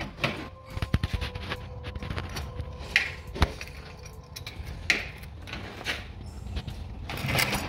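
Scattered metal clinks, knocks and scrapes from hands and tools working around a new serpentine drive belt and its tensioner pulley. A faint steady tone runs underneath.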